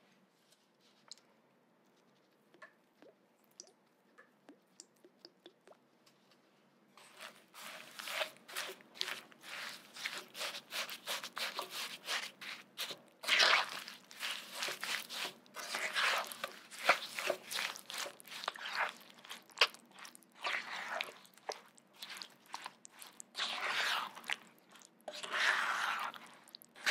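A spatula stirs diced strawberries and sugar in a nonstick frying pan, making uneven wet crunching and squishing strokes as sugar granules grind against fruit and pan. The stirring starts about seven seconds in, after a near-quiet stretch with a few faint ticks.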